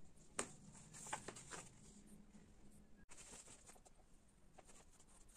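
Faint handling sounds on a wooden tabletop: one sharp knock near the start and a few softer taps over the next second, then faint light ticks and rustling.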